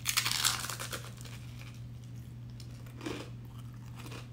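A crunchy bite into a fried crab rangoon: a loud, crackly crunch of the fried wonton wrapper lasting under a second, then quieter chewing with another short crunch about three seconds in.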